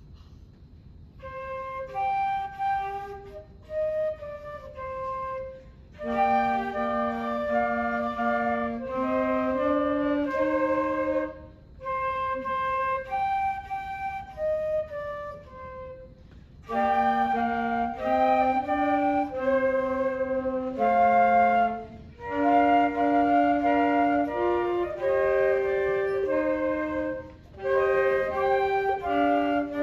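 Small woodwind ensemble of flutes and alto saxophone playing a sea-shanty tune. The flute melody starts about a second in, a lower part joins about six seconds in, and there are short breaks between phrases.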